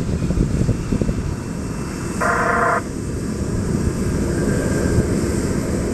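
Jet airliner's engines rumbling steadily close by on the runway, with a short buzzing tone about two seconds in.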